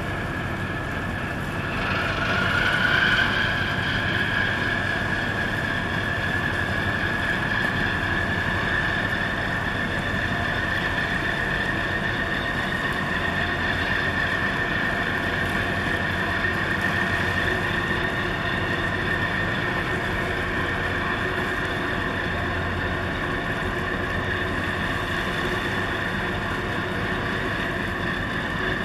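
Tugboat engines working hard against a container ship's hull: a steady low rumble with a high whine that rises in pitch and grows louder about two seconds in, then holds steady.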